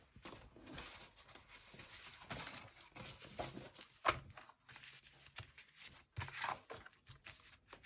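Loose paper scraps rustling and sliding as hands shuffle them and lay down a sheet, with a sharper paper flap about four seconds in.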